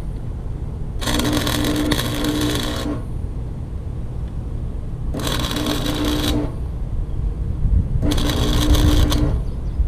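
Wire-feed welder laying short welds on a broken mower handle: three crackling, sizzling arc bursts, the first about two seconds long and the next two a little over a second each, with the hum of the wire feed in each burst, over a steady low rumble.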